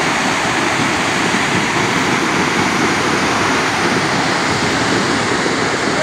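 Steady, unbroken rushing of a tall waterfall plunging into a rock pool.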